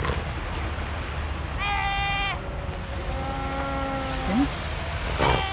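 Cape fur seal pup bleating, a lamb-like cry: one loud call about two seconds in, fainter held calls after it, and another loud call starting near the end, over a steady rumble of wind and surf.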